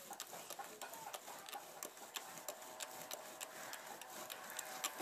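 Bow drill at work: a wooden spindle spun back and forth by a bow in a wooden hearth board, a faint rhythmic scraping with a tick about three times a second.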